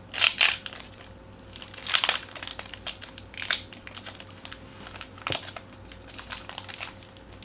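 Foil wrapper of a Pokémon booster pack crinkling as the pack is opened, in several short bursts with light clicks and taps between.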